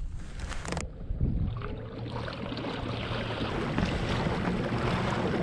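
Kayak under way across open water: a steady rush of water along the hull and spray at the stern, with wind on the microphone. A faint rising whine sounds about two seconds in.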